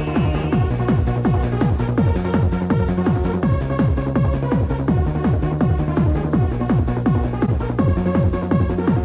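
Fast makina-style electronic dance music: a steady, rapid kick drum under sustained synth chords.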